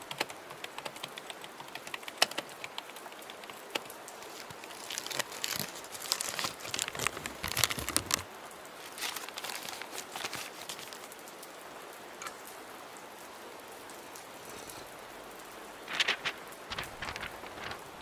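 Steady rain hiss, with scattered keyboard-typing clicks in the first few seconds and bursts of paper rustling around the middle and again near the end.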